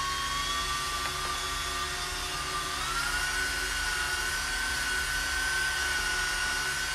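Handheld electric drill driving a paddle mixer through a cup of two-part epoxy, a steady motor whine that steps up in pitch about three seconds in and then holds.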